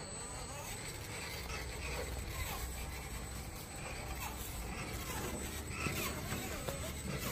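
Traxxas TRX-4 RC crawler driving over rough ground: a steady run of motor and drivetrain noise with tyres scuffing, the rebuilt transmission running without grinding.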